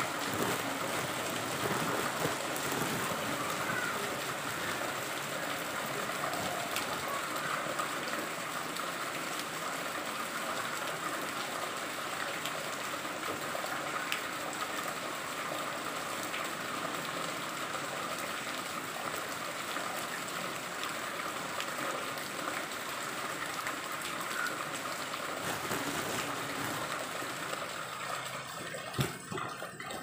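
Steady rain falling on a flooded paved surface, drops splashing into the shallow standing water, with water trickling down a wall. A single sharp tap near the end.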